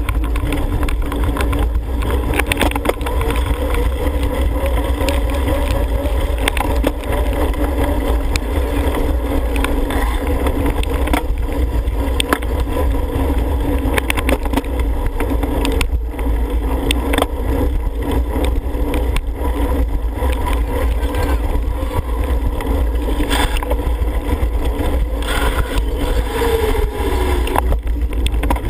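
Wind buffeting the microphone of a helmet-mounted camera on a racing cyclocross rider, a steady heavy rumble, with the whir of bicycles on wet pavement and scattered clicks and rattles over it.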